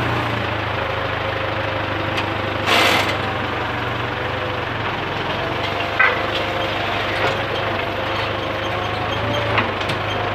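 Tractor engine running steadily, heard from inside the cab. A short hiss comes about three seconds in, and a few sharp clicks near the middle and near the end.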